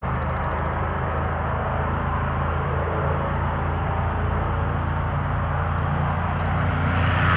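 Piston engine of a single-engine propeller warbird droning steadily on its takeoff roll, growing slightly louder as it approaches. A few faint bird chirps sound over it.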